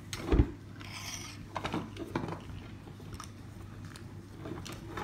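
Small toy pieces and plastic packaging being handled on a table: a soft thump, a brief rustle, then scattered light clicks and taps.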